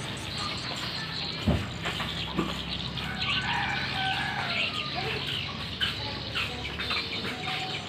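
Small birds chirping in the background, a busy run of short calls from about three seconds in. Two dull thuds of cardboard boxes being handled, the louder about one and a half seconds in.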